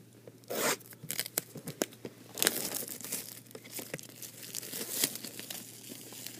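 Plastic trading-card packaging being torn open and crinkled: irregular crackling rustles with sharp clicks, busiest from about two and a half seconds in.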